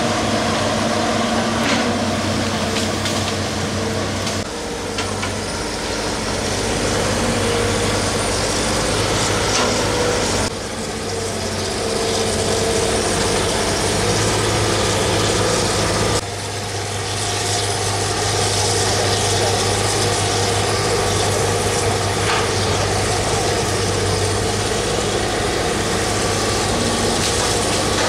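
Hitachi hydraulic excavator's diesel engine running steadily. Its sound drops abruptly three times, about a third, a half and two-thirds of the way through.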